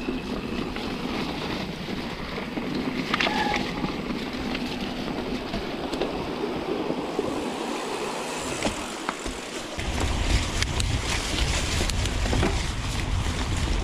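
Mountain bike rolling over a rough trail: tyre noise with occasional knocks and rattles from the bike. Wind rumbles on the microphone from about ten seconds in.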